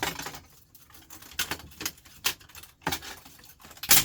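Irregular clinks and clatter of metal and plastic printer parts being handled and set down, with a sharper knock near the end.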